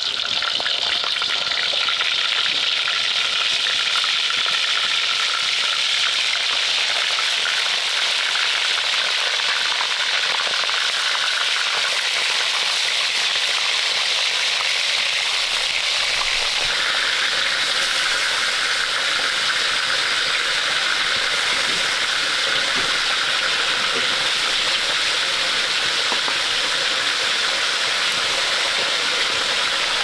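Food frying in hot oil in a steel wok over a wood fire: a steady sizzle. About sixteen seconds in, more pieces go into the oil and the sizzle grows fuller.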